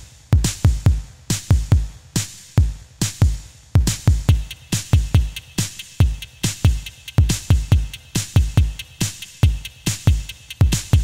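Background electronic music with a steady drum-machine beat.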